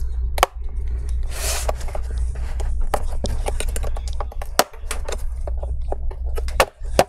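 A metal pry tool levering and scraping along the seam of a laptop's bottom cover, with a run of sharp clicks and snaps as the cover's clips let go, over a steady low hum.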